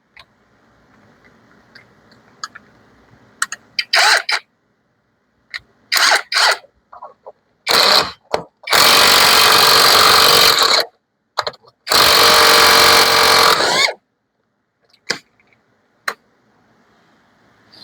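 Power tool run in a few short bursts and then two longer runs of about two seconds each, undoing the 24 mm rear axle nut on a Honda Helix CN250 scooter.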